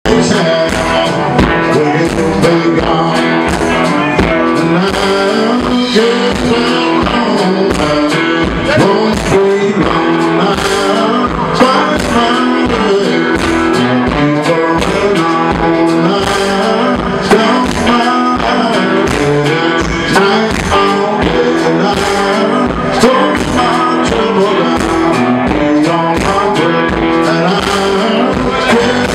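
Live blues band playing an upbeat rock-and-roll number: electric guitars, bass guitar and drums keeping a steady driving beat, with a lead vocal over them.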